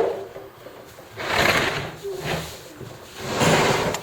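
A sharp knock, then three bouts of rubbing and rustling handling noise, the first and last about a second long.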